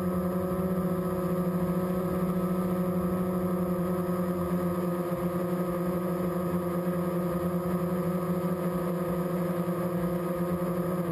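Steady hum of a small remote-controlled aircraft's electric motors and propellers, picked up by the camera it carries, holding an even pitch.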